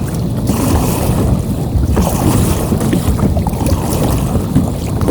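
Steady, loud wind buffeting the microphone on open water, with sea water washing underneath.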